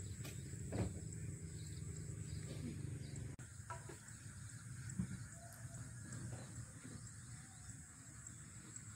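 Outdoor rural ambience: a steady high-pitched insect drone over a low background rumble, with a few faint animal calls and a brief knock about five seconds in.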